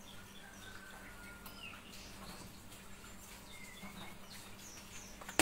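Faint bird chirps: a few short, scattered calls over a low steady hum.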